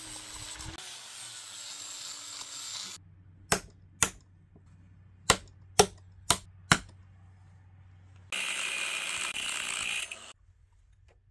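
Hand metalworking on a steel frame: about three seconds of scraping, then six sharp knocks over roughly three seconds, then a steady hiss lasting about two seconds.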